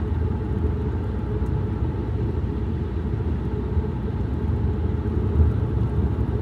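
Steady low rumble of a moving car heard from inside the cabin: tyre, road and engine noise while driving.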